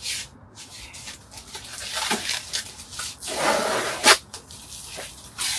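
A cardboard box and its packaging being opened by hand: irregular rustling and tearing, with a longer, louder tearing stretch about three and a half seconds in and a sharp snap just after it.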